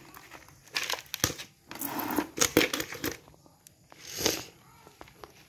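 Potting mix and anthurium roots rustling and crunching under the hands in a few short bursts of handling, the loudest and longest about two to three seconds in.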